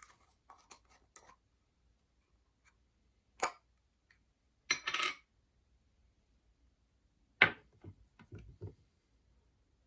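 Scattered clicks and knocks of a shoe-cream jar and tools being handled and set down, the loudest a sharp knock about seven and a half seconds in.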